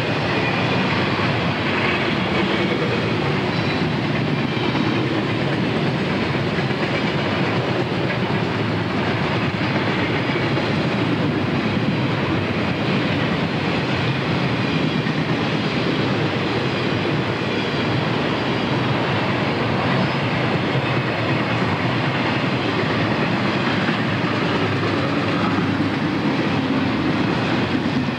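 Double-stack container train passing, its well cars' wheels running steadily over the rails.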